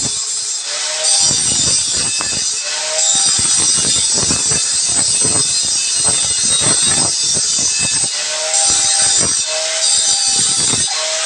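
Angle grinder mounted as a chop saw, its abrasive cut-off disc cutting 1x1 galvanized square steel tube with a harsh metallic screech. The motor's whine stands out on its own near the start and again near the end, between cuts.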